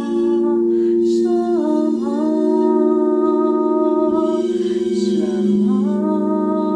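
A woman's voice toning long, wordless held notes over the steady ring of crystal singing bowls played with a mallet. The voice breaks off briefly twice and slides up to a new held pitch each time, while the bowls' tones ring on beneath.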